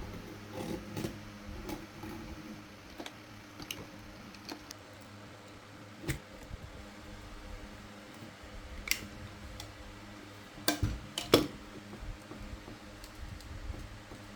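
Utility knife cutting along the silicone sealant of an aquarium's glass panel: scattered small clicks and scrapes of the blade, with a few louder knocks against the glass about two-thirds of the way through.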